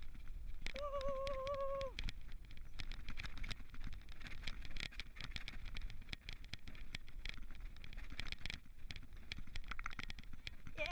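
Four-wheel dog cart rolling over a rough dirt track behind running dogs, its wheels and frame rattling with many quick clicks over a steady rumble. About a second in, a held, wavering call sounds for about a second.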